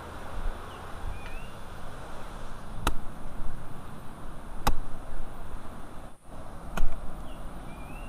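Three sharp knocks, about two seconds apart, with a small bird chirping briefly in the background.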